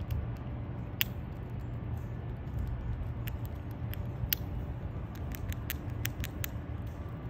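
Eastern gray squirrel gnawing a whole walnut in its shell: short, sharp clicks of its incisors scraping the hard shell, one about a second in, then coming more often from about halfway. A steady low rumble lies under it.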